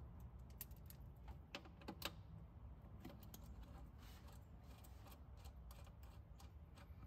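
Faint small metallic clicks and taps of a terminal bolt, nut and wire ring terminals being handled and fitted onto a lithium battery's positive post, with a couple of sharper clicks about one and a half and two seconds in.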